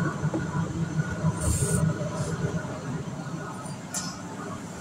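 Handling noise as toys and the phone are moved about: brief rustles and scrapes, about one and a half, two and four seconds in, over a steady low hum.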